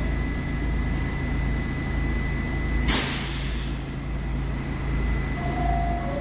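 Subway train with a steady low rumble and a constant high whine. About halfway through comes a sudden sharp hiss of air from the air brakes, fading over about a second.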